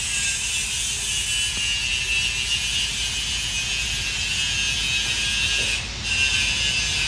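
Steady high-pitched hissing whine from an unseen workshop power tool, over a low rumble; it breaks off for a moment about six seconds in and starts again.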